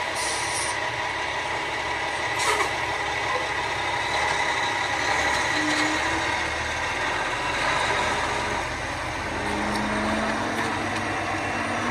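A motor vehicle's engine idling steadily, a constant hum and hiss with a low rumble; it cuts off suddenly at the end.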